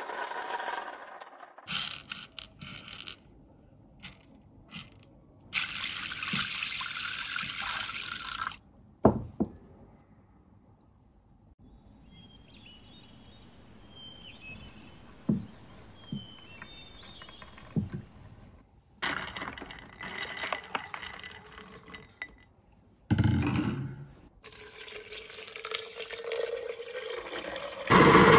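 Dried soybeans dropping into a wooden tray, then water pouring in several separate stretches, with a few single knocks and quiet gaps in between.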